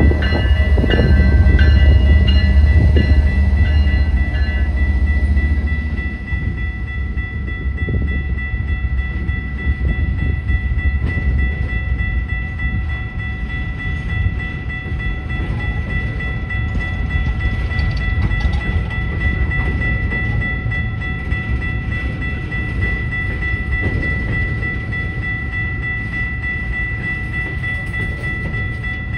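Diesel-hauled CN coal train passing close by: a heavy low locomotive rumble for about the first six seconds, then the coal cars rolling by with a steadier, lighter rumble. A steady high tone runs throughout.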